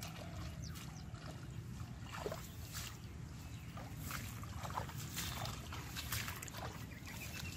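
Footsteps through grass as irregular soft clicks over a low steady rumble, with a few brief falling chirps.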